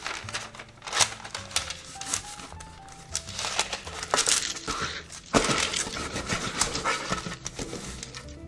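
Kitchen utensil clinking and scraping in a glass mixing bowl as ingredients are mixed by hand, a string of irregular clicks and scrapes, over soft background music.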